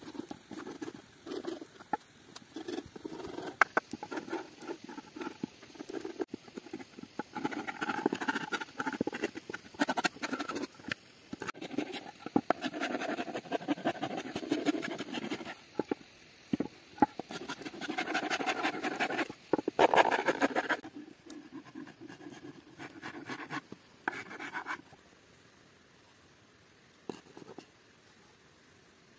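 Coarse wood rasp scraping back and forth across a green-wood plate blank, a quick run of rough strokes that stops a few seconds before the end.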